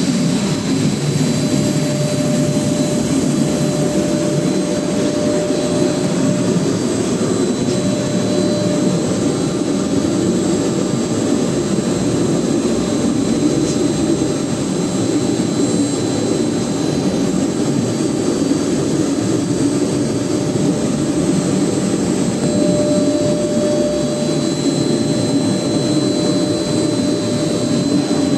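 Hairline brush polishing machine running steadily, its brush roller turning while a metal plate feeds through on the conveyor to take a hairline finish. A low, even whir, with a faint whine that comes in near the start and again near the end.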